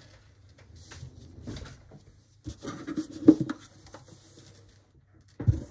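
Handling noise as a rigid gift box and lid are moved off a table and a leather planner is slid along it: soft rustling, a cluster of knocks about three seconds in, and another thump near the end.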